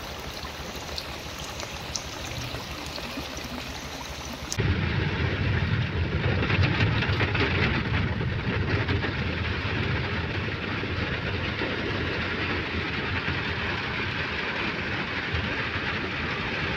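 Floodwater rushing steadily down a street. About four seconds in, this cuts to the steady cabin noise of a vehicle driving in the rain: a low road and engine rumble under the hiss of rain.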